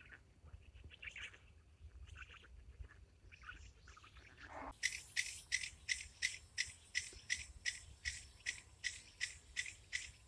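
Small animal calls: scattered high squeaks and chirps, then about a third of the way in a regular, even pulsed chirping, about three pulses a second.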